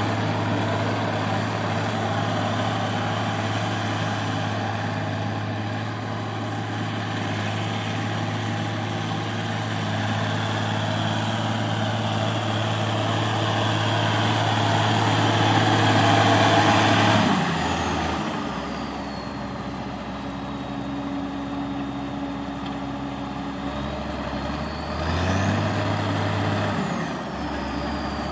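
Allis-Chalmers 190XT's six-cylinder diesel engine running at a fast idle, then throttled down to a lower idle partway through, with a high turbo whistle winding down. Near the end it is revved briefly, the whistle rising and falling again, and it settles back to idle.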